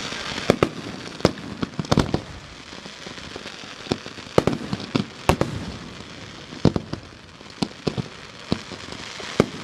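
Fireworks going off: irregular sharp bangs and pops, sometimes several within a second, over a steady crackling hiss.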